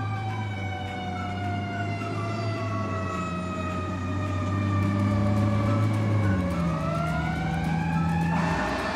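An emergency-vehicle siren wailing. Its pitch falls slowly for about six seconds, then rises again, and a louder, harsher blast comes in near the end.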